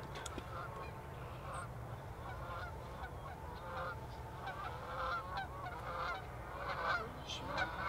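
A flock of geese honking as it flies in toward the hunters, the calls faint at first and then coming thicker and louder toward the end.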